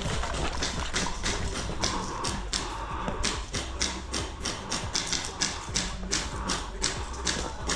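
A quick, irregular run of sharp taps and thuds, several a second, with music underneath.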